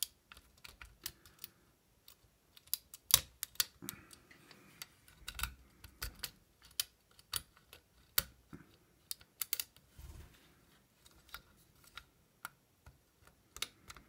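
Steel lock pick clicking and scraping against the pins inside an old Eagle mailbox pin-tumbler lock while a tension wrench holds the cylinder: scattered irregular small clicks, a few sharper than the rest.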